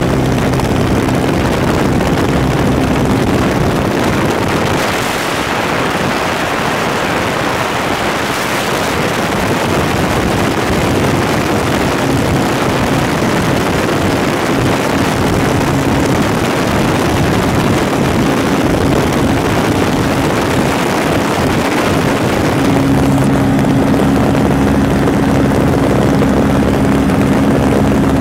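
Light propeller airplane in cruise, heard from the cabin: a steady engine-and-propeller drone under heavy wind rush from the open door and window. Near the end the drone stands out more clearly over the wind.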